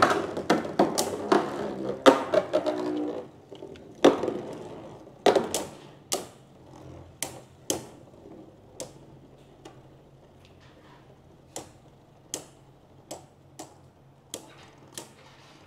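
Two Beyblade Burst spinning tops whirring in a plastic stadium and knocking into each other with sharp clacks at irregular intervals. The spinning is loudest in the first few seconds, then fades as the tops slow, leaving fainter clacks about once a second.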